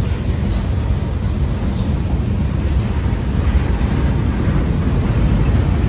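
Freight train cars, tank cars and then boxcars, rolling past close by: a loud, steady rumble of steel wheels on the rails.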